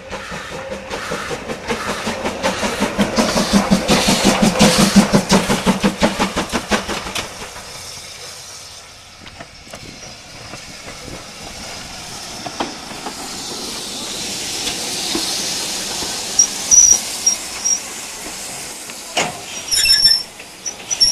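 A train running with fast, loud rhythmic beats for the first seven seconds or so, which then fade. BR Standard Class 5MT steam locomotive 73050 then draws slowly in, its steam hissing, with brief high-pitched squeals and a few knocks near the end.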